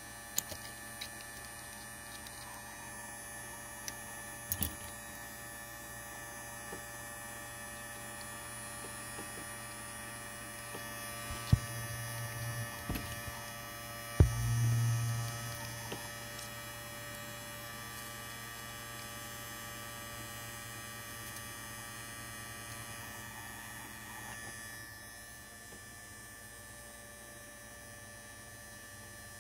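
Handheld 8018LCD hot air rework gun running steadily, its fan humming as it blows hot air onto a circuit board to desolder a component. A few sharp clicks from the tool against the board come near the middle.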